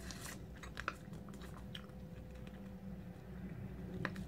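Faint chewing of a soft, very chewy fruit taffy, with a few small clicks scattered through.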